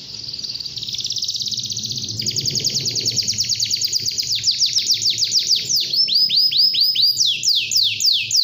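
Domestic canary singing a long, rolling song of rapid trills. The repeated notes change pace and shape several times, with runs of downward-sliding notes in the second half. The song grows louder over the first few seconds.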